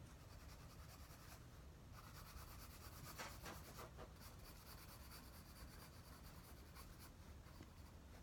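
Faint scratching of a drawing tool on paper, in short back-and-forth strokes that cluster most densely through the middle.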